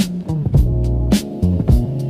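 Background music: a funk track with a steady drum beat, bass and guitar.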